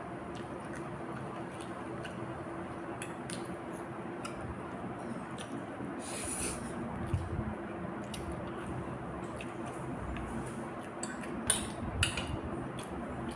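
Eating sounds: a mouthful of instant ramen noodles slurped up from chopsticks about six seconds in, and sharp clicks of chopsticks against the plate, loudest near the end.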